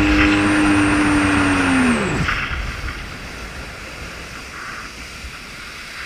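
Jet ski engine running at a steady high pitch, then about two seconds in it winds down with falling pitch and stops, leaving wind and water noise.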